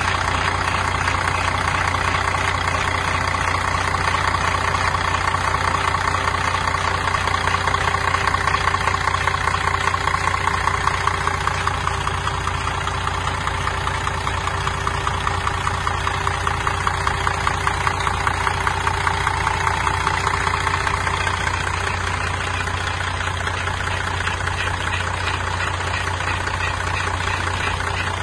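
Diesel engine of a Temsa Safari HD coach idling steadily, heard close up at its open rear engine compartment; the level swells a little twice before settling.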